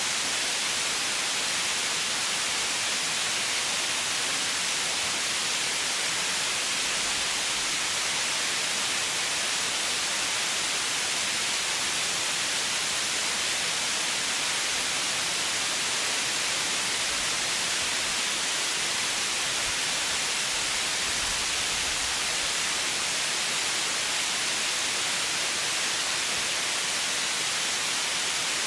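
Steady white noise: an even, unchanging high hiss with no rhythm or breaks.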